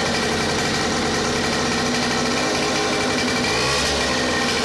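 Air-cooled 5 hp Yamaha boat engine running steadily, with a slight rise in pitch about three and a half seconds in.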